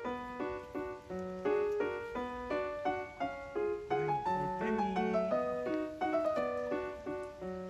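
Background piano music: a melody of short notes over chords at a steady, even pace.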